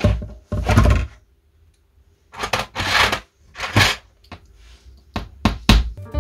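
Angry rummaging: irregular bursts of clattering and knocking as things are pushed about, ending in three short, sharp knocks in quick succession.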